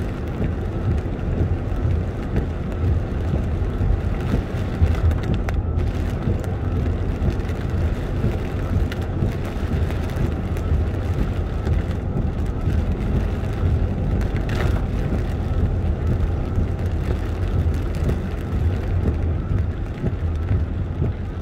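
Steady low rumble of a car driving on a wet road, heard from inside the cabin: engine and tyre noise with a hiss of tyres on wet tarmac.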